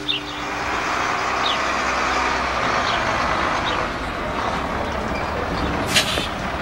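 Rear-loader garbage truck pulling up and running, a steady noisy rumble, with a single sharp clank about six seconds in.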